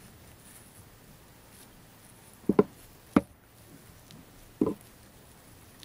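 Sharp knocks of objects handled on a tabletop at a fly-tying vise: a quick double knock about two and a half seconds in, another a moment later, and one more near the end.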